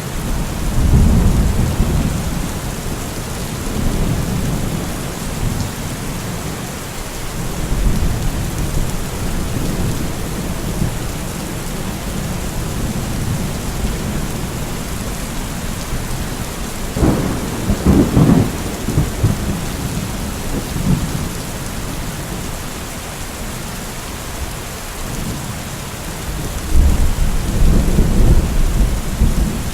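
Steady rain falling, with thunder rumbling again and again through it. A sharper clap comes a little past the middle, and a longer rumble builds near the end.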